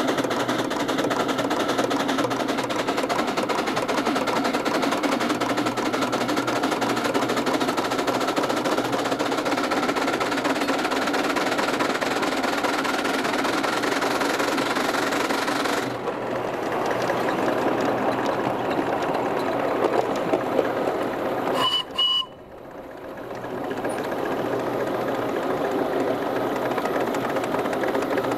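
A 7¼-inch gauge coal-fired live-steam Wren locomotive running along the track with a steady noise, heard from the footplate. About 22 seconds in, its whistle gives two short toots.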